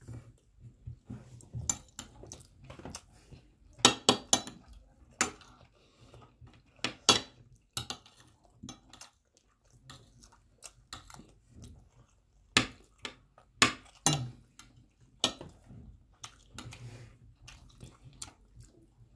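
Metal forks clinking and scraping against plates of rice as two people eat: irregular sharp clinks, some in quick clusters, with a few louder ones.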